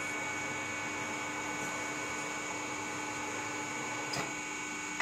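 Truck tyre changing machine's motor running with a steady hum and whine, as its tool arm works the bead of a truck tyre; a short click about four seconds in.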